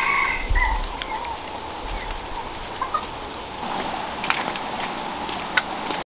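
A goat kid's bleat that ends about half a second in, then a few short hen clucks over a steady background hiss, with a few sharp clicks in the second half.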